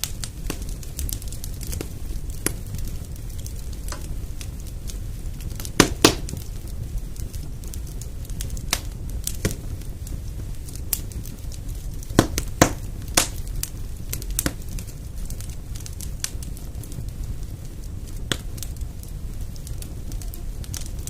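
Wood fire burning in a fireplace: a steady low rumble of flames with irregular sharp crackles and pops, a few louder pops about six seconds in and around twelve to thirteen seconds in.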